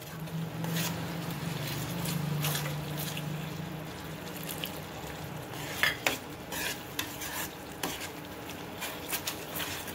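Slotted metal spatula stirring a thick sauce gravy in a non-stick frying pan, scraping through the sauce, with several sharp taps against the pan in the second half. The gravy is being stirred as cornflour slurry is worked in little by little, so that it does not form lumps.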